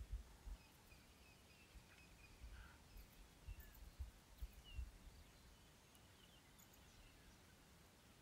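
Near silence with faint, scattered bird chirps and a few soft low thumps around the middle.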